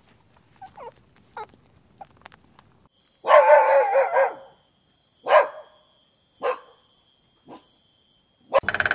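A dog barking: a few faint short yips, then one long drawn-out bark about a second long, followed by three short barks about a second apart, each fainter than the last. Just before the end a different, rapidly pulsing sound begins.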